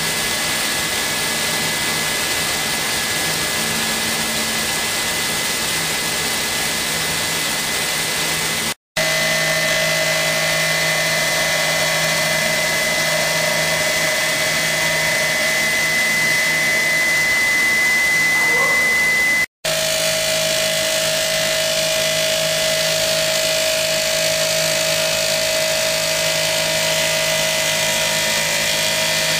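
Five-axis CNC machine running, a steady machining noise with a high whine. It cuts out abruptly twice, about nine and nineteen seconds in, and the pitch of the whine shifts after each break.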